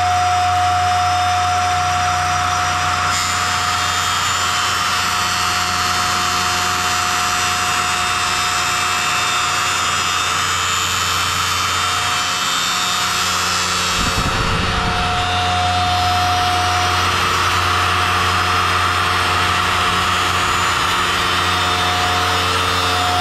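APS3000 CNC surfboard shaping machine running its circular cutting blade through a polyurethane foam blank: a steady high whine from the spinning blade over a low machine hum and the hiss of cutting. A brief low rumble comes about two-thirds through.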